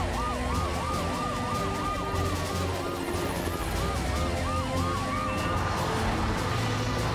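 Cartoon emergency sirens of a police car and a fire truck wailing together in quick rising-and-falling sweeps, a few cycles a second, over background music with a steady low bass.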